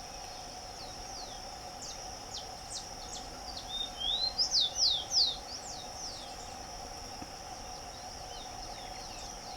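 Rufous-collared sparrow singing: scattered short falling chirps, then about four seconds in a loud burst of slurred whistles, one rising and several falling. A steady high insect drone runs underneath.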